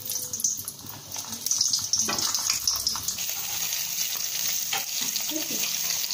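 Pointed gourds (potol) sizzling as they fry in hot oil in a kadai. The sizzle is steady, growing louder about two seconds in.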